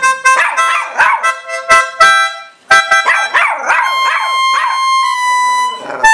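Poodle howling along to an electronic keyboard playing in a pipe-organ voice. Its wavering howls rise and fall over a run of held organ notes, and the playing stops just at the end.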